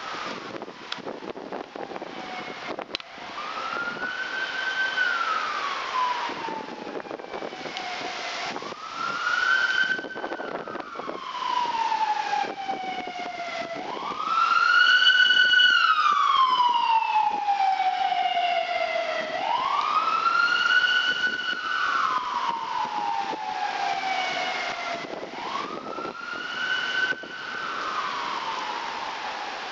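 Siren wailing: each cycle climbs quickly, holds briefly, then slides slowly down, repeating about every five seconds. A second siren overlaps it around the middle, over a steady rushing background noise.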